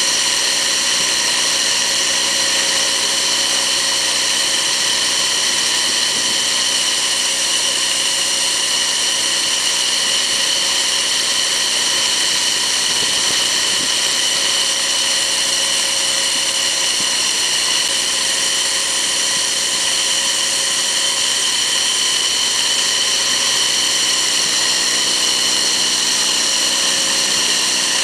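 Bark mulch blower running steadily, a high whine over a rush of air as mulch is blown out through its hose.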